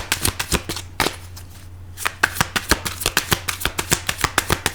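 A deck of tarot cards being shuffled by hand: a quick run of crisp card snaps and slaps that stops for about a second, then starts again.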